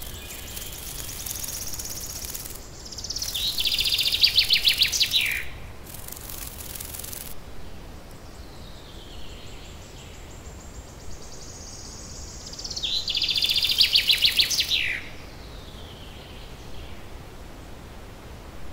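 Outdoor nature ambience: a bird gives a rapid, pulsed trill that drops in pitch at its end, twice, about ten seconds apart, over a steady faint hiss. Short bursts of high hiss come and go in the first seven seconds.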